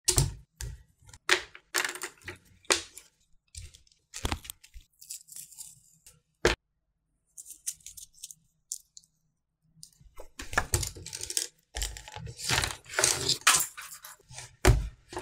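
Hands handling a spiral sketchbook and masking tape on a desk: irregular taps, clicks and paper rustles, with quieter stretches around the middle.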